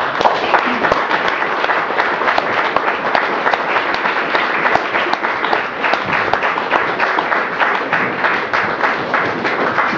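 Audience applauding: dense clapping from many hands that breaks out suddenly and keeps up at a steady level.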